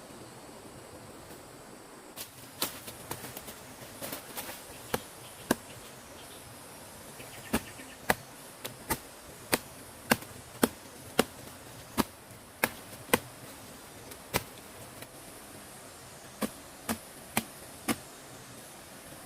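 A blade chopping into bamboo: sharp single strikes, scattered at first, then a steady run of about two a second, and a few more near the end. A steady insect drone runs behind them.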